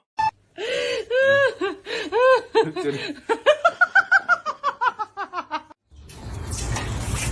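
A person laughing hard in a long run of quick, high-pitched peals that speed up in the middle and tail off. Near the end it stops and a steady rushing noise begins.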